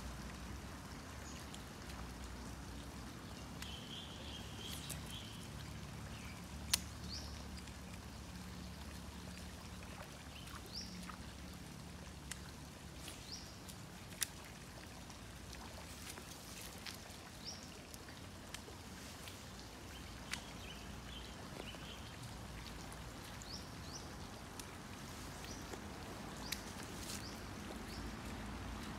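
Quiet pond-side outdoor ambience: a steady low hum with scattered faint clicks and a few short, high bird-like chirps.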